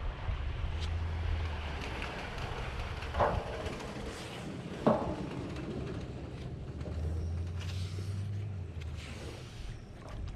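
Wind rumbling on the microphone, with two sharp knocks about three and five seconds in.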